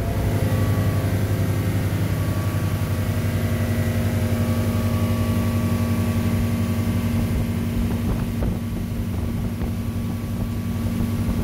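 Outboard motor of a fishing boat running steadily at speed, a constant engine hum with water noise from the hull and wake.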